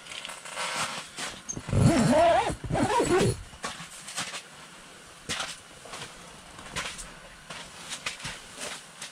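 A high, wavering whine-like vocal cry lasting under two seconds, starting about two seconds in, with scattered soft clicks and rustles around it.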